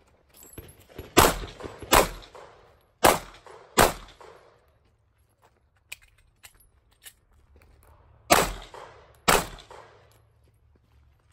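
Glock 43 9mm subcompact pistol firing six shots in three pairs, each shot followed by a short echo. The first two pairs come about a second apart early on, then after a gap of about four seconds with a few light clicks, the last pair comes near the end.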